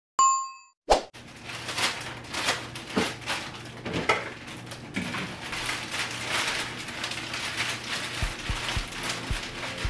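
A short bell-like chime that dies away, then a sharp knock about a second in, followed by kitchen handling noises: irregular rustling, clicks and light clatter of dishes and utensils.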